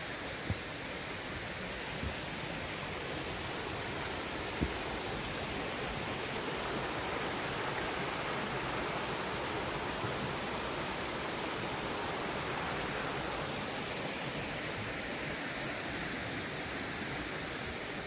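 Steady rush of water from a rocky stream cascading down its falls, swelling slightly in the middle. A few soft thumps in the first five seconds.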